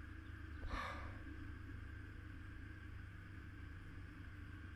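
A man's short exhaled sigh, about a second in, over a faint steady low rumble.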